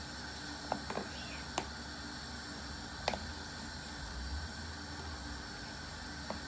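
A spoon stirring a thick curry in an aluminium pot, knocking sharply against the pot several times, mostly in the first half and once near the end. A steady hiss runs underneath.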